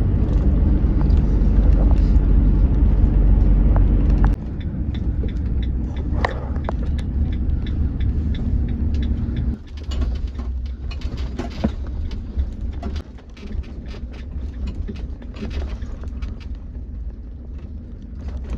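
Peugeot Boxer camper van driving, its engine and road rumble heard from inside the cabin. It is loudest for the first four seconds or so, then quieter, with a few light knocks and rattles.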